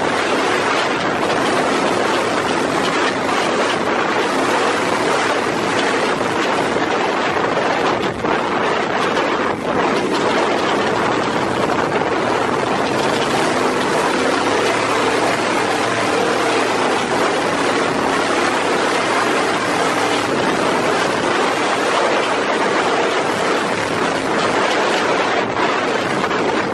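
Trophy truck running hard at speed over desert terrain, heard from inside the cab as a loud, steady mix of engine, wind and ride noise, dipping briefly twice about eight to ten seconds in.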